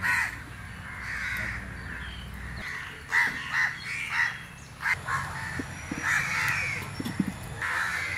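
Crows cawing, a string of separate calls one after another, over a low hum that stops about two and a half seconds in.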